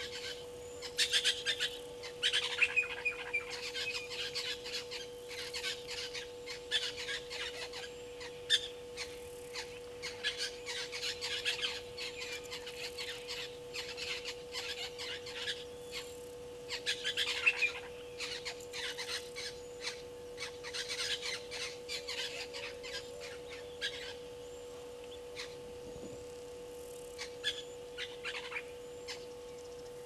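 Brown-headed parrot calling: rapid series of harsh, shrill squawking notes in bouts, with a pause near the end before a short final burst. A steady humming tone runs underneath.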